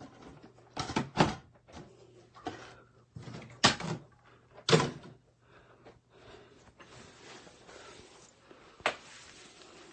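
Several sharp knocks and thumps, about five in all: a close pair about a second in, two louder ones around four and five seconds in, and one more near the end, over a faint low hum.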